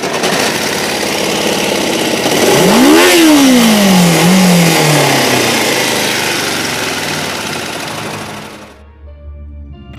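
Kawasaki Ninja 500's parallel-twin engine revving hard under way, over a loud rushing noise. The pitch climbs steeply about two and a half seconds in and then falls away over the next couple of seconds. The engine is running well after being fixed. Near the end it cuts off abruptly, and quieter music follows.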